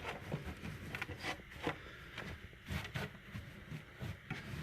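Hands spreading and smoothing loose cypress mulch substrate in a terrarium: soft, irregular scratchy rustles and small crackles.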